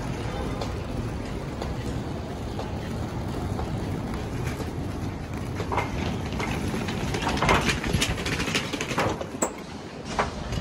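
Wheeled suitcases rolling along, a steady rumble, with a run of sharp clacks and knocks through the second half as the wheels and footsteps cross the ridged entrance mat and hard floor.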